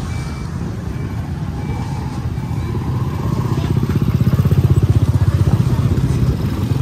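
A motor vehicle engine passing close by in street traffic. Its fast, even firing pulse grows louder to a peak about halfway through, then fades.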